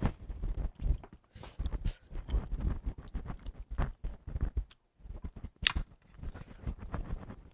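Close-up chewing and mouth smacking while eating, a run of short irregular wet clicks, with one brief high squeak a little past halfway.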